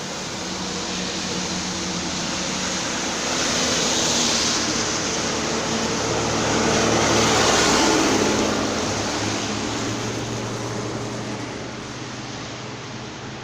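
Road traffic: motor vehicles passing close by, the engine and tyre noise swelling twice, loudest about four and about seven seconds in, then fading.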